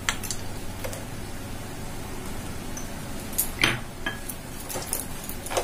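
Scattered light clicks and clinks as chopped almonds and cashews are dropped and tipped from a bowl into a nonstick pan of halwa: a few near the start and a cluster in the second half.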